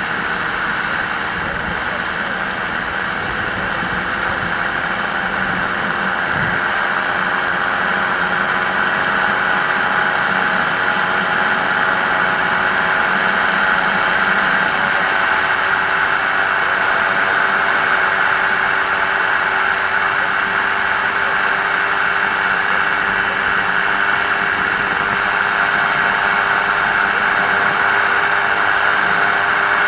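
Microlight aircraft's engine and propeller droning steadily in flight, mixed with a heavy rush of air over the microphone. The engine note dips slightly and settles in the first few seconds, then holds even.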